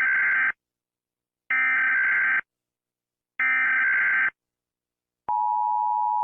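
Emergency Alert System alarm: three short, identical bursts of the digital SAME header, a harsh electronic warble each just under a second long and about two seconds apart. About five seconds in, the steady EAS attention tone begins.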